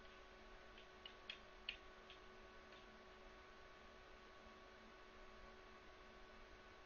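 Near silence with a faint steady electrical hum, and a few soft clicks from a computer being worked, bunched between about one and three seconds in.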